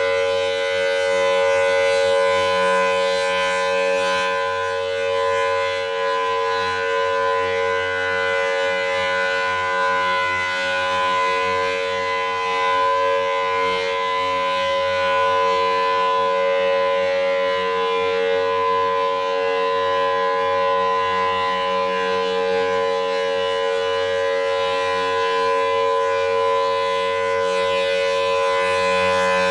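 Federal Signal Thunderbolt 1000T civil defense siren sounding its Alert signal: one steady, unbroken tone with no rise or fall in pitch, its loudness swelling gently up and down.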